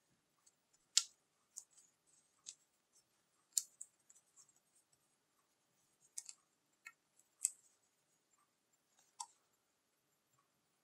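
Quiet, scattered crackles and sharp ticks of a sheet of double-sided adhesive tape and its plastic backing liner being handled and peeled, about a dozen, the loudest about a second in and again around three and a half and seven and a half seconds in.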